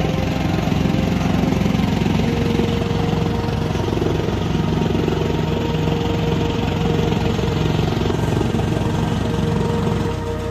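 Engine-driven farm chopping machine running steadily and loudly while bundles of dry sugarcane stalks are fed into it.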